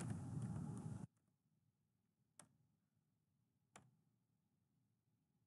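Computer keyboard keys clicking over a steady hiss that cuts off suddenly about a second in. After that, two single sharp key clicks about a second and a half apart in near silence.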